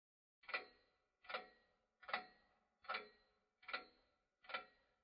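Six evenly spaced ticks, about one every 0.8 seconds, each a short knock with a brief ringing tail and silence between.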